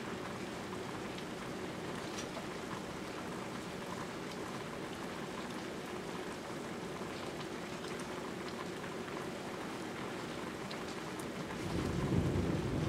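Steady rain falling with scattered drip ticks. Near the end a low rumble of thunder swells in and becomes the loudest sound.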